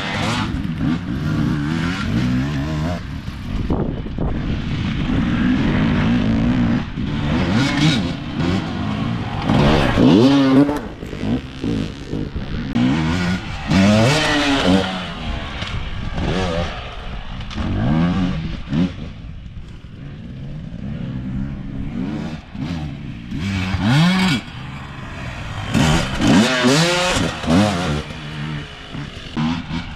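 Enduro motorcycle engine revving hard and easing off again and again as it is ridden, its pitch rising and falling every few seconds.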